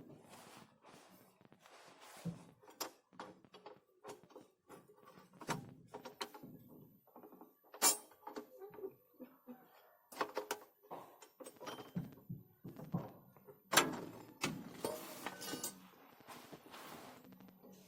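Irregular knocks, clicks and clanks of hand tools and metal parts being handled, with two sharp, louder strikes about eight and fourteen seconds in.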